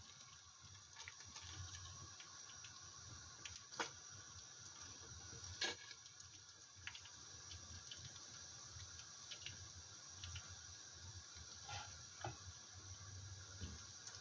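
Fish pieces frying in hot oil with a faint, steady sizzle. A few sharp clicks come as a wooden spatula and a slotted turner knock against the pot while the pieces are turned and lifted out.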